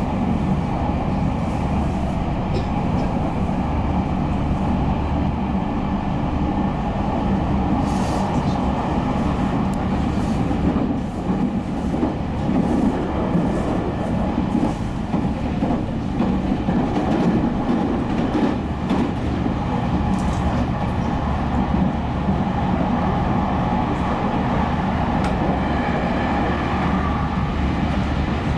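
Interior running sound of a JR Central 315 series electric train travelling at speed: a steady rumble of wheels on rail, with a few brief knocks.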